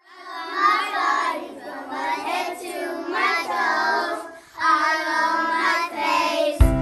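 A group of young children singing an action song together without accompaniment, with a short break about four seconds in. Recorded music with a steady beat comes in just before the end.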